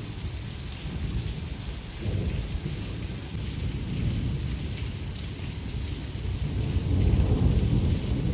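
Rain falling, with a steady hiss over a low rumble that swells near the end.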